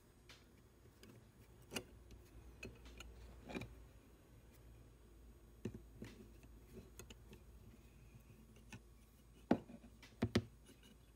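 Scattered small metal clicks and taps from handling the parts of a Stanley No. 220 block plane and working at its lever-cap screw with a screwdriver. The loudest, a sharp click and then a quick double click, come near the end.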